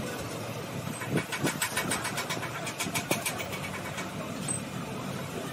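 Gas torch flame burning steadily as it melts lead onto the lugs of a lead-acid battery plate group. About a second in, a run of rapid sharp ticks, several a second, lasts for about three seconds.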